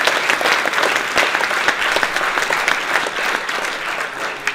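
Audience applauding, many hands clapping together, dying down a little near the end.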